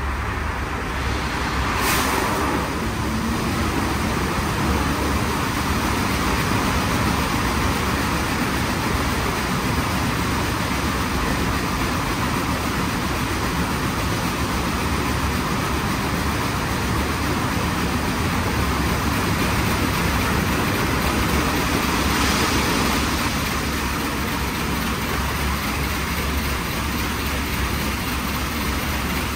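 WashTec SoftCare² Takt rollover car wash gantry at work: a steady, even machine noise, with brief swells of hiss about two seconds in and again about twenty-two seconds in.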